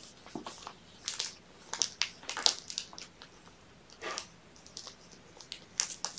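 Irregular bursts of rustling and crinkling as kittens are handled and stroked on a blanket, loudest about halfway through.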